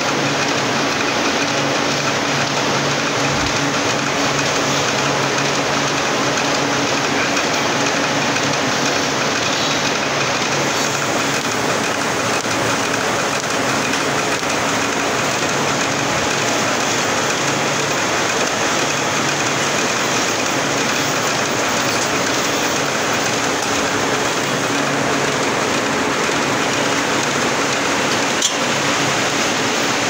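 Milking parlour machinery running: a steady hiss with a low hum underneath, from the milking machines at work on the cows.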